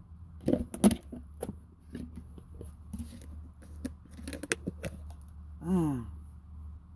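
Plastic sour-cream and cottage-cheese tubs being handled: the snap-on lid prised off with scattered clicks and knocks, then a smaller tub pulled out of the larger one with a short squeak falling in pitch about six seconds in. A low steady hum runs underneath.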